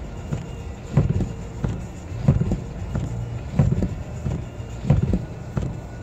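Inside a car driving slowly through deep snow: a steady low drone with a regular thump about every second and a third.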